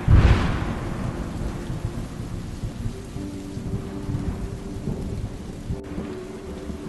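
A sudden loud thunderclap at the start, fading into a low rumble, over steady heavy rain.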